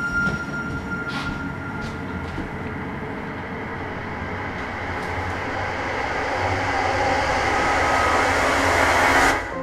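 A dense rumbling, hissing noise that swells steadily louder and then cuts off suddenly near the end: a suspense-building sound-effect swell.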